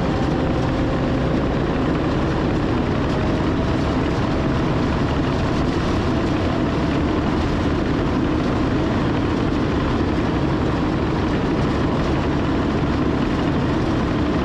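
John Deere 450K LGP crawler dozer's diesel engine running steadily, with a faint whine that rises a little in pitch over the first few seconds.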